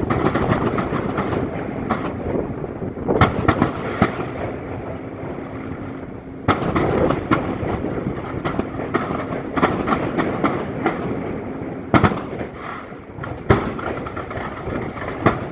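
Aerial fireworks shells bursting: a continuous crackle with several sharp, loud bangs, the clearest a few seconds in, near the middle, and twice near the end.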